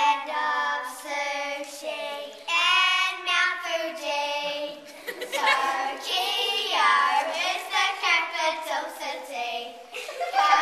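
A group of young girls singing together, in long held notes that slide from pitch to pitch.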